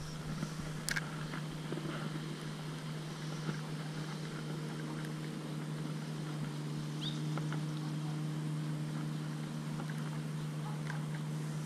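A steady low mechanical hum, like a distant motor, with a brief click about a second in.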